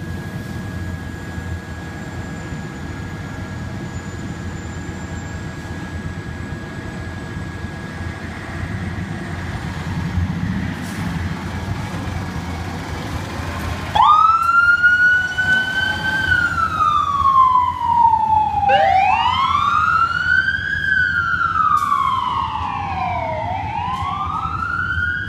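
Fire engine's diesel engine running as it pulls out of the station. About halfway through, its siren starts suddenly and wails, rising and falling in pitch every few seconds.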